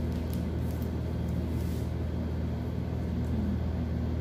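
Steady low mechanical hum, with a few faint scratches of pencil on pattern paper.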